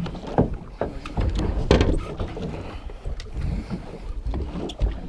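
Wind buffeting the microphone on a small boat at sea, with irregular knocks and thumps.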